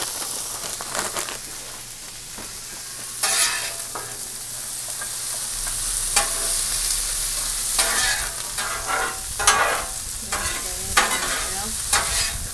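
Frozen mixed vegetables and broccoli sizzling in oil on the steel top of a Blackstone griddle, a steady hiss, with a metal spatula scraping and tapping on the steel several times as it stirs them.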